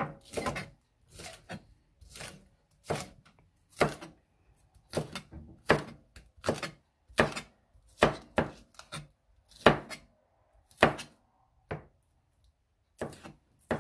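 Chef's knife chopping green onions on a plastic cutting board: a string of separate knocks of the blade on the board, one every half second to a second, with a short pause near the end.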